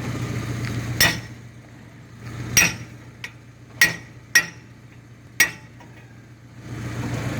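Five sharp metallic strikes, each ringing briefly, spaced unevenly about a second apart: metal being struck on steel. A steady low hum runs under the first strike and comes back near the end.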